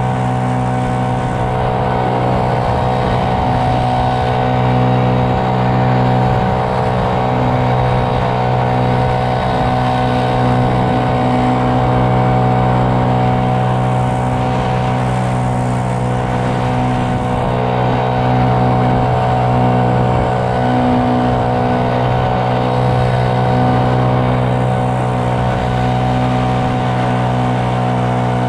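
A work vehicle's engine running at a constant speed as it rolls slowly along the roadside verge: a steady, loud hum made of many even tones that holds unchanged throughout.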